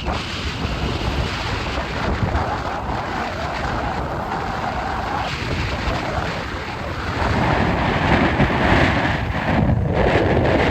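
Stormy sea: surf and breaking waves in a continuous rush, with strong wind buffeting the microphone into a low rumble. The noise swells louder about seven seconds in.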